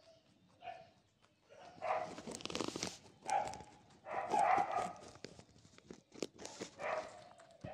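Rabbit crunching a carrot in quick clusters of crisp bites, with several short calls from another animal mixed in, the loudest about four seconds in.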